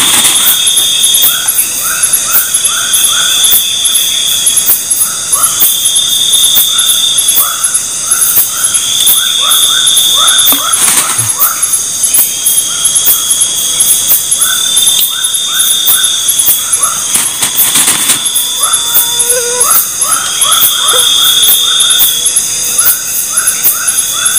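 Loud chorus of night insects: a steady high shrill, over which a trill comes and goes about every two to three seconds, with short chirps in quick runs of three to five.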